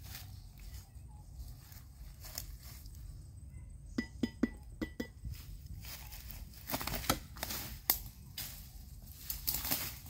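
Footsteps and rustling through dry grass and leafy undergrowth as a person walks through it, with a quick run of sharp, ringing clinks about four seconds in.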